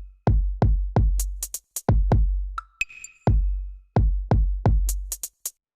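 Electronic background music: a drum-machine beat of deep, booming bass-drum hits, with clusters of crisp high percussion hits and a short bell-like chime about three seconds in.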